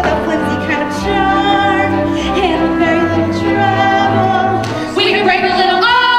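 Female voices singing a comic show tune over musical accompaniment with a pulsing bass line; about five seconds in they go into a long held note.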